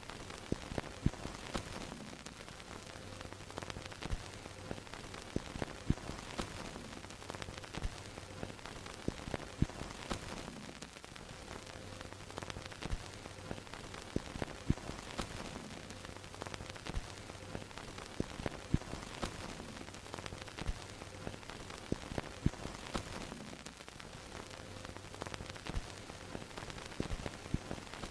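Old film projector sound effect: steady hiss full of crackles and pops, like dust and scratches on a film soundtrack, over a low hum that comes and goes every few seconds.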